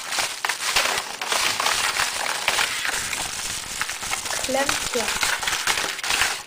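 Padded mailer envelope and its packed contents crinkling and rustling as items are pulled out by hand, a continuous run of crackly rustles.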